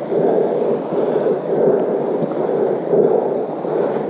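Muffled, rhythmic noise of walking on a dirt trail with the camera carried along: footfalls and body movement pulsing at about a step and a half a second.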